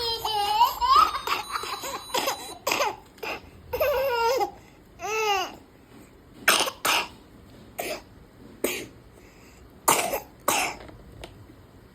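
Baby laughing and babbling in high-pitched bursts, followed by several short, sharp coughs in pairs, with laughter around them.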